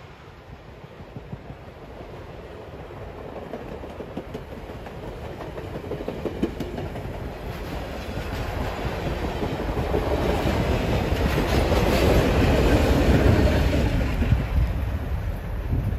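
Passenger train coaches rolling past on jointed track, their wheels clicking and clacking over the rails with a steady rumble. The sound builds as the last cars go by and peaks near the end.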